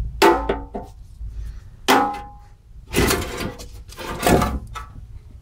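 Heavy steel blocks set down and shifted on the top of a sheet-steel enclosure: four metallic knocks and scrapes, some with a short ringing tone.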